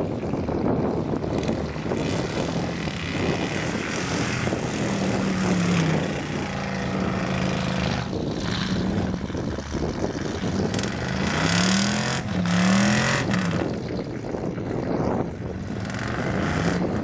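Dodge Ram pickup's engine revving under heavy load as the truck pushes into deep mud and bogs down, over a steady rough churning noise. The revs climb and fall several times, with a run of quick rev swings a little past the middle.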